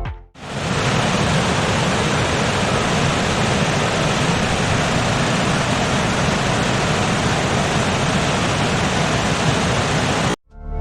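Waterfall: a steady, even rush of falling water with no music, starting just after the music cuts out and stopping abruptly near the end.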